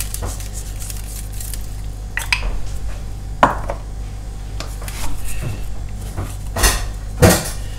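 Kitchen handling sounds: about five short clinks and knocks of containers and utensils being picked up and set down beside a roasting tray, the loudest near the end, over a steady low hum.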